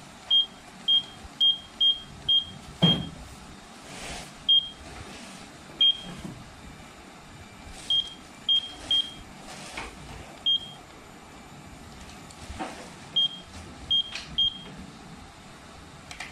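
L&T-Komatsu excavator monitor panel beeping as its keypad buttons are pressed: short high beeps, all at one pitch, singly and in quick runs of two to five, about fifteen in all. A few soft knocks fall between the beeps.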